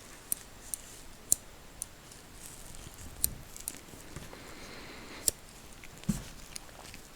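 Scissors snipping close to the microphone: about eight sharp, crisp snips at irregular intervals, with a soft low thump about six seconds in.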